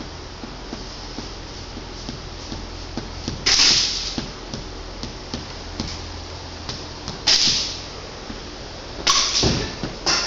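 Scattered faint clicks and pops, typical of airsoft guns firing across the field, broken by four sudden loud hissing bursts. The bursts come at about a third of the way in, two-thirds in and twice near the end, each fading quickly.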